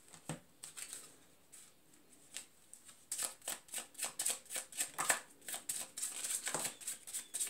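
A deck of cards being shuffled by hand: faint handling at first, then a quick run of card flicks from about three seconds in.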